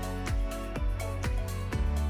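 Background music with a steady beat, a little over two beats a second, over a sustained bass line.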